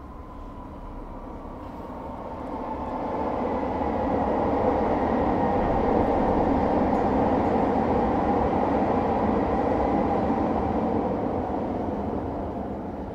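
Elevated rail-transit train passing on a concrete viaduct: its rumble swells over a couple of seconds, holds steady for several seconds, then fades away.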